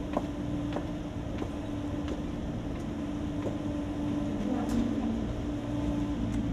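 Footsteps on paving, about one and a half steps a second, fading out after a few seconds, over a steady low hum.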